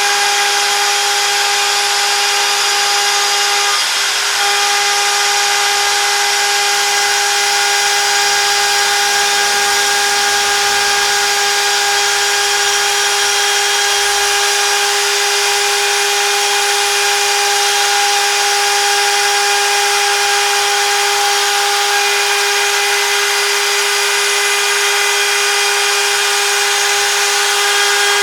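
CNC router spindle running at a steady speed while cutting: a steady high whine over a hiss, with a short dip in the whine about four seconds in.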